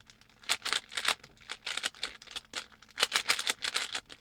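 Plastic Rubik's cube being turned quickly by hand: quick runs of clicks and clacks as the layers snap round, with short pauses between runs.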